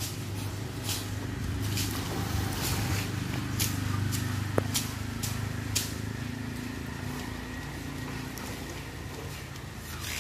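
Scrubbing strokes on an elephant's wet hide, short and scratchy, roughly one or two a second and thinning out in the second half, over a steady low hum; one sharp click about halfway through.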